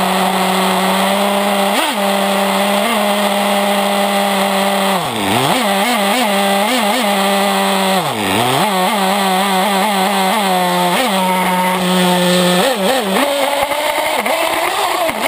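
Two-stroke nitro glow engine of an RC truck running at high revs, heard close on board: a steady high-pitched whine. It drops sharply and climbs back twice, about five and eight seconds in, as the throttle is let off and reopened, with quick throttle blips in between and near the end.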